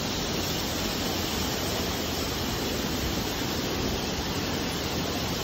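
Waterfall: water rushing steadily down a rock cascade, an even, unbroken noise.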